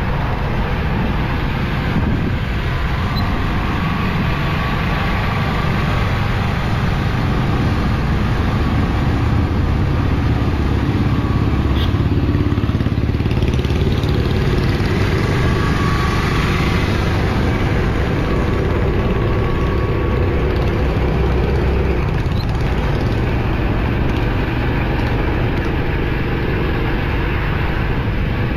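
Steady road and traffic noise from driving through town traffic: engine and tyre noise running without a break.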